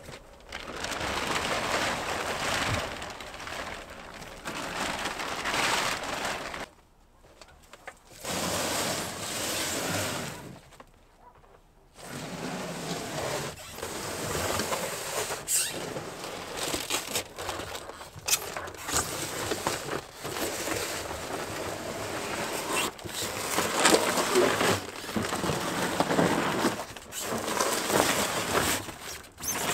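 Rustling and scraping of a refrigerator being handled and moved on bare dirt, with scattered knocks and clicks.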